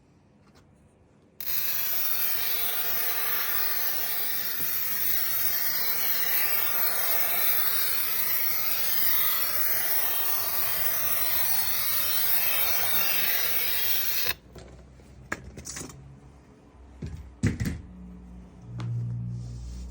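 A power tool grinding against a hard surface: a steady rasping hiss that starts about a second and a half in and cuts off suddenly after about 13 seconds, followed by a few light clicks and knocks.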